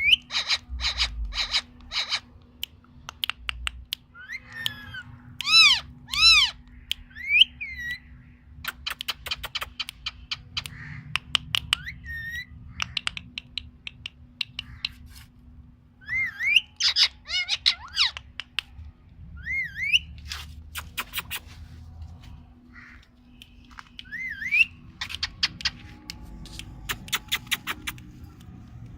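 Ringneck parakeet whistling short rising and arching notes, between quick runs of sharp clicks.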